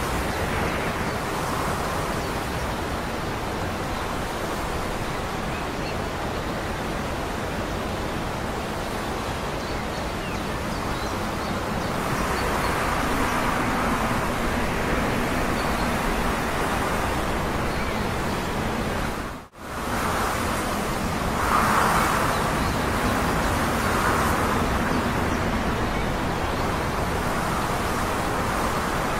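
Steady outdoor rushing noise with a faint low hum, broken by a brief sharp dropout about two-thirds through, after which it returns slightly louder.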